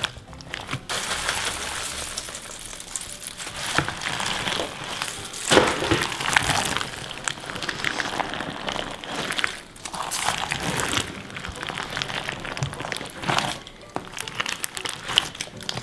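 Hands kneading and squishing a large batch of clear slime packed with cut plastic drinking-straw pieces: a dense, irregular crackling and crunching of the straw bits, coming in louder spells as the hands press in.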